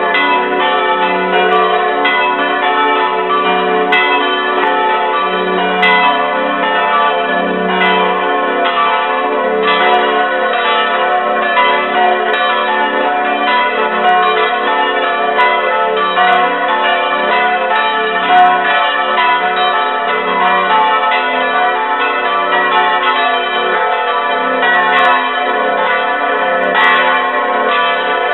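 Full peal of four swinging bronze church bells, tuned to fis', a', h' and d'', ringing together in overlapping, irregularly interleaved strokes, with a low hum pulsing steadily underneath.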